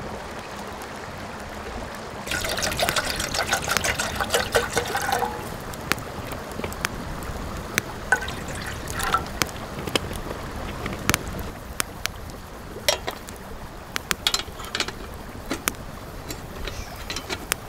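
Water poured from a plastic bottle into a metal camp kettle, splashing and trickling. A wood campfire crackles underneath with scattered sharp pops, more of them in the second half.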